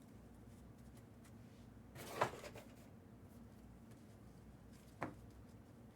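Quiet room tone with a brief scraping knock about two seconds in and a short sharp click about five seconds in, typical of things being handled on a table.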